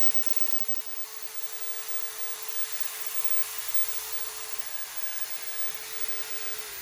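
Makita 9032 belt file sander running unloaded, a steady whine over the hiss of the belt. It is switched off at the very end and its pitch begins to fall.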